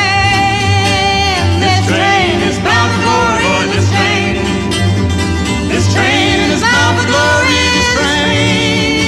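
Upbeat folk song recording with acoustic guitar, a low beat pulsing about once a second and a melody line bending above it.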